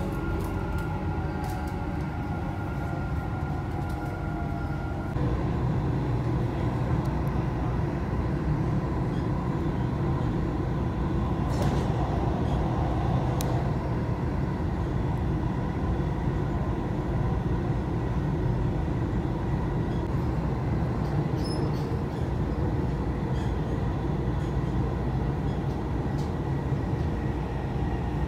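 Dubai Metro train running on its elevated track, heard from inside the carriage: a steady rumble of wheels and motors. A faint whine at the start stops about five seconds in, and the running noise gets a little louder.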